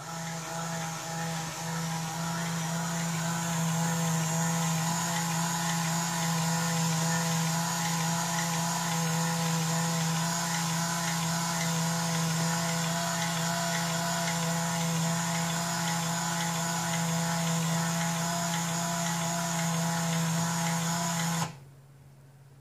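Atlas HO-scale turntable's motor drive unit and gearbox running, a steady mechanical drone as the bridge rotates under indexing control. It starts at once and cuts off suddenly about 21 seconds in as the bridge stops, lined up with the entry track.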